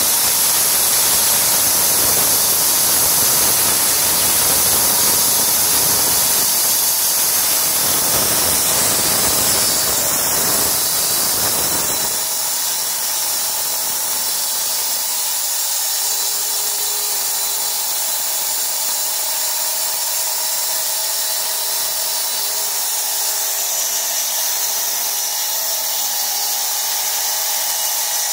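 Band sawmill sawing an oak log, running with a steady high hiss. For about the first twelve seconds a deeper, coarser cutting noise runs under it; this then drops away, and the saw runs on with a thinner, even sound.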